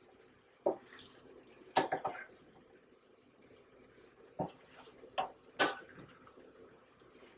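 Wooden spoon knocking and scraping against a stainless steel pan while folding a vegetable-and-fish sauté, about half a dozen scattered taps.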